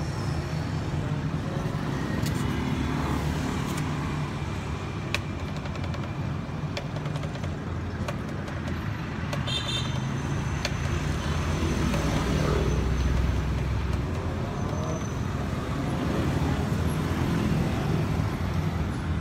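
Street traffic: motorbike and vehicle engines running past in a steady hum, with a few faint clicks.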